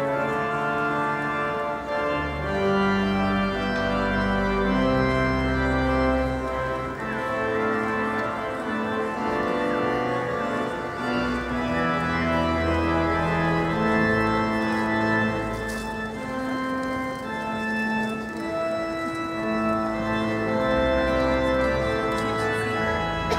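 Organ playing slow processional music: sustained chords over deep bass notes, changing every second or two.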